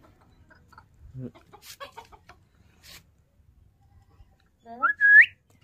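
A bird's short call about five seconds in, climbing steeply in pitch, with a few fainter chirps and clicks before it.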